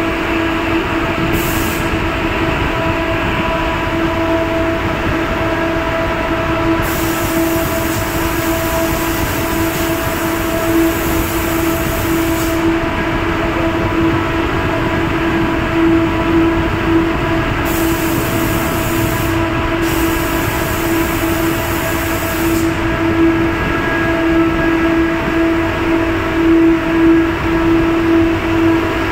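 Steady drone of work machinery, such as ventilation blowers and air equipment, running inside an enclosed steel compartment, with a strong steady hum. A high hiss joins it twice, each time for about five seconds, from about seven seconds in and again from about eighteen seconds in.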